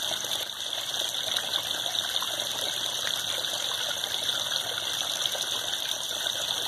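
Steady rush of running water in a koi pond.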